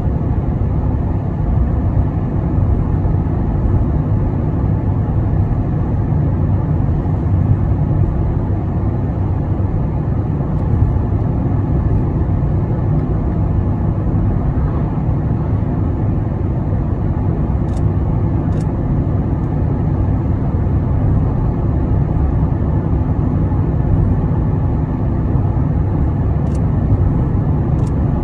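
Steady low road and engine rumble heard inside the cabin of a car driving at highway speed.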